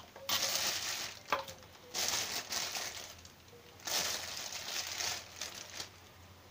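Polythene bag crinkling and rustling in several bursts as frozen amla are pulled out of it by hand, with one sharp knock about a second in.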